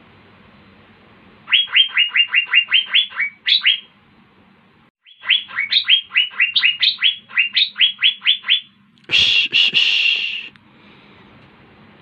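Asian fairy-bluebird singing: two rapid runs of short falling notes, about six a second, followed about nine seconds in by a harsh, noisy call.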